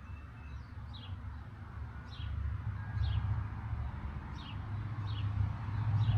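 A bird repeating a short, down-slurred chirp about once a second, over a low rumble that grows louder.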